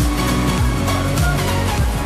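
Electronic music with a steady kick-drum beat about twice a second under sustained synth notes.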